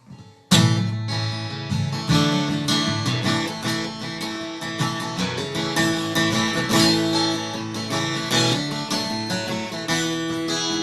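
Acoustic guitar playing an instrumental introduction, strummed chords starting suddenly about half a second in and carrying on steadily.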